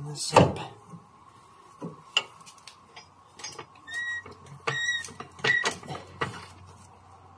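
Clunks and knocks of a coilover strut being moved into place against the suspension and strut tower, the loudest near the start, with a few short squeaks in the middle.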